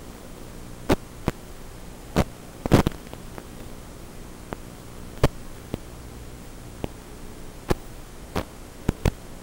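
Steady electrical hum and hiss from an analog FPV video receiver's audio channel, recorded by the goggles' DVR, broken by about a dozen sharp, irregular crackling pops. The pops are typical of the analog signal breaking up.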